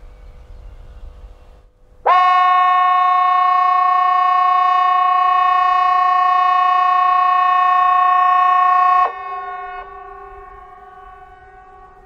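Hesa Fredrik civil defence warning horn sounding one loud, steady tone for about seven seconds, starting about two seconds in and cutting off suddenly: the seven-second blast of the 'Important message' signal used in the quarterly alarm test. After the cut-off, a fainter tone from more distant horns lingers and fades.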